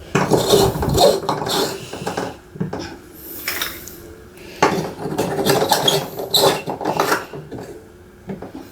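Light bulbs being screwed into lamp sockets: clinks and scraping of glass and metal against the holders, in two spells of handling with a short lull between.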